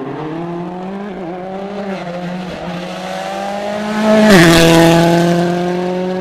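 Rally car at full speed on a special stage, its engine note climbing steadily as it approaches, then passing close at its loudest about four seconds in, with the pitch dropping sharply as it goes by.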